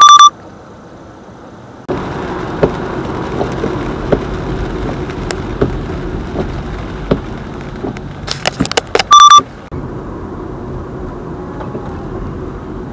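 Steady road and engine noise heard inside a car cabin on a wet road with the windscreen wipers going, with scattered ticks through it. It is broken by two short, loud, high electronic beeps, one right at the start and one, after a few clicks, about nine seconds in. After the second beep the road noise continues more quietly.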